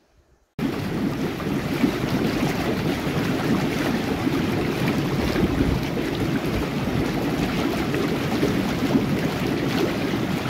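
Hot tub jets running, the water bubbling and churning in a steady rush that starts abruptly about half a second in.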